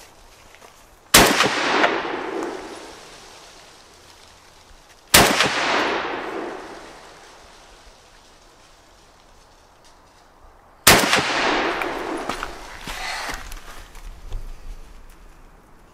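Kalashnikov assault rifle fired three times as single shots, about four and then six seconds apart, each crack followed by a long echo dying away.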